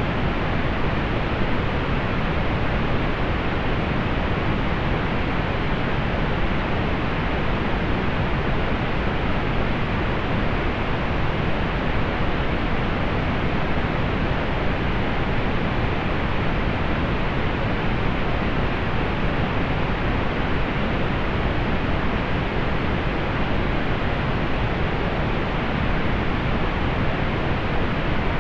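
Steady pink noise: an even, unchanging hiss with its weight toward the low end and little treble.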